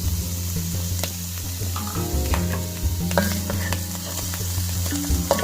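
Sliced mushrooms sizzling in hot oil in a wok while being stirred, with the utensil giving several sharp clicks against the pan.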